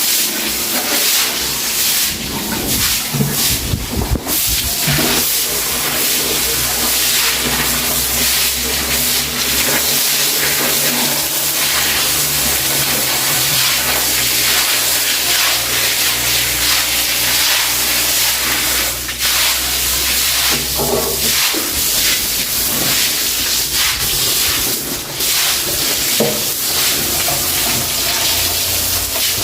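Broom bristles scrubbing a wet floor as it is washed with water, a steady loud hiss. A low hum runs underneath from about six seconds in until about twenty-one seconds.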